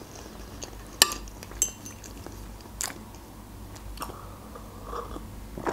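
Close-miked eating sounds: a mouthful of meringue roll being chewed, with a few sharp clicks and a short clink of a metal fork on a plate. About four seconds in come soft sips of tea from a glass cup.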